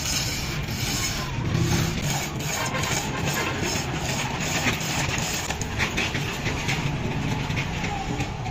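An engine running steadily, with irregular clinks and rattles of a hand chain hoist's chain as a heavy truck axle housing is hauled up.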